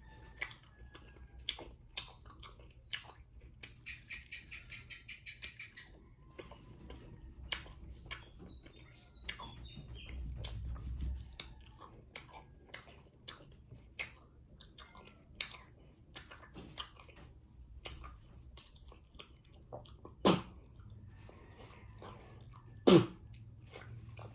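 Close-miked chewing of a bite of raw guava: many irregular sharp crunches and mouth clicks, with a quick run of rapid clicks about four seconds in. Two louder sudden sounds come near the end.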